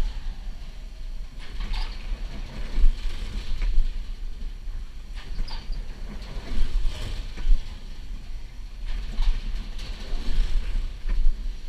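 Wind rumbling and buffeting the microphone of a camera riding a Frog Hopper bounce ride, its loudness rising and falling unevenly. Several short higher-pitched sounds come and go over it.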